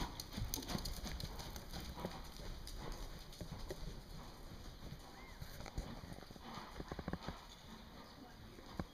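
Hoofbeats of a horse trotting on arena sand, a run of faint, soft thuds.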